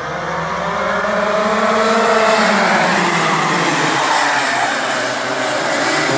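A pack of Rotax Max 125cc two-stroke karts accelerating together off a race start, many engines revving at once with overlapping pitches rising and falling. The sound swells louder over the first two seconds, then holds.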